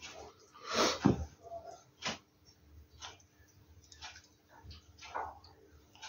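African grey parrot vocalising: one louder call about a second in, then a run of short clicks about once a second.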